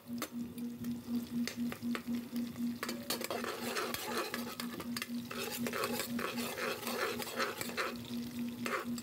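Garlic, ginger and red onion sizzling in hot oil in a metal pot, with a spatula stirring and scraping repeatedly against the pot.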